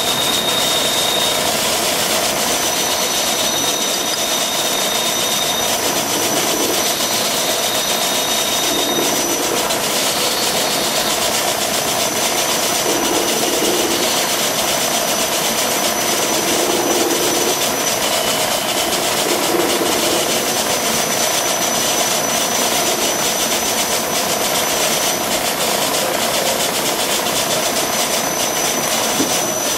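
Bridgeport milling machine running steadily, its spindle turning a center drill into the head of a frozen rifle action screw. A thin high whine comes and goes over the steady machine noise.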